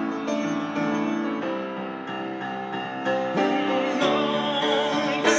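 Instrumental music: sustained keyboard chords changing about every second, with a wavering higher melody line coming in about three and a half seconds in.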